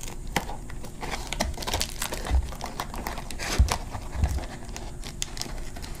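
Scissors cutting through foil-faced insulation and sticky foil tape: irregular crinkling and crackling of the foil with snipping clicks, plus a few dull bumps from handling.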